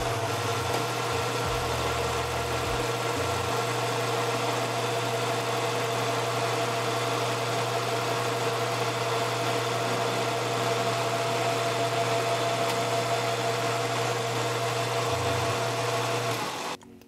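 Metal lathe running at a steady speed while boring out the bore of a 6061 aluminium pulley blank: a constant motor hum and whine over cutting noise. The sound stops abruptly near the end.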